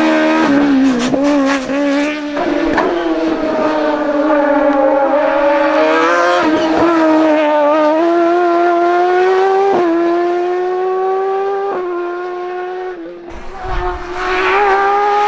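A hillclimb race car's engine at high revs, pulling hard with its note climbing steadily and breaking sharply at gear changes, about three times. Near the end the sound drops away briefly, then comes back loud and rising.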